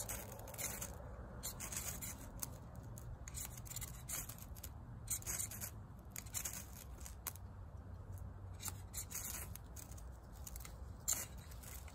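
A steel striker scraped repeatedly down a ferrocerium (ferro) rod to light birch bark tinder: a series of short, irregular scraping rasps.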